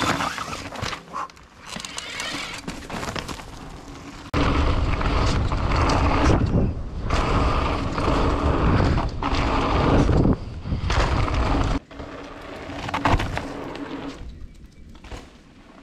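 Electric mountain bike riding down a dirt trail: tyres rolling over loose dirt and the bike rattling, with heavy wind buffeting the microphone. The sound jumps abruptly in level at about 4 seconds and again near 12 seconds.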